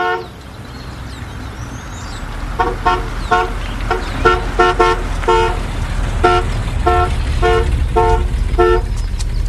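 A red Cadillac convertible's car horn gives one short toot, then about a dozen quick honks over a low engine rumble as the car pulls up.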